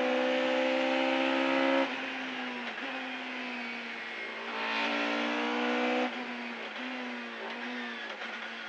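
Darrian T90 GTR rally car's engine heard from inside the cockpit: held at high revs, then lifting off suddenly about two seconds in. It pulls hard again around five seconds in, lifts off abruptly a second later, and the revs fall away in a few steps as the car slows.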